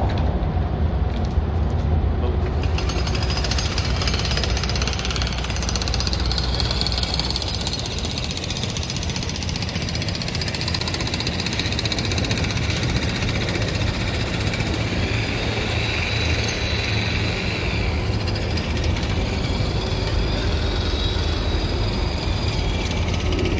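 Loud, steady construction-site and street noise, with machinery rattling over a low rumble and a faint high whine in the middle.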